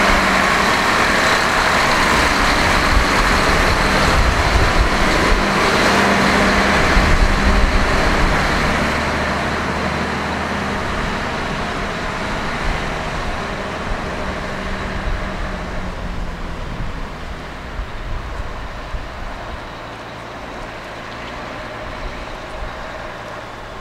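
Heavy vehicle engine running steadily with a low hum under a noisy rumble, growing gradually fainter over the second half.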